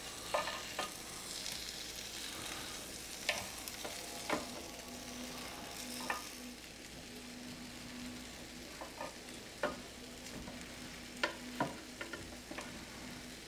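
Chicken legs sizzling on the hot grill grate of a Ninja Foodi XL Grill as they are turned with tongs, with scattered sharp clicks and taps of the tongs against the grate. A faint steady hum sets in about four seconds in.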